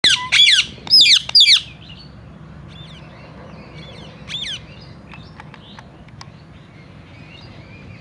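Indian ringneck (rose-ringed) parakeet giving four loud, harsh squawking calls in quick succession at the start. Fainter scattered bird chirps and calls follow, with one louder call about four seconds in.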